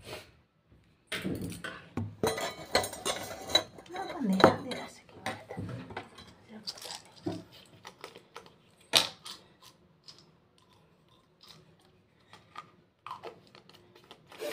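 Small hard household objects clinking and rattling as they are handled. The rattles and clinks come thick over the first five seconds or so, then thin out to scattered clicks, with one sharp click about nine seconds in.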